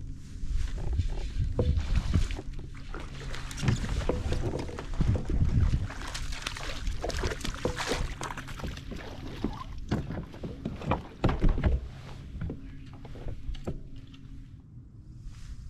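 Irregular knocks, bumps and scrapes against a plastic fishing kayak as gear is handled on board, with heavy thuds through the hull now and then.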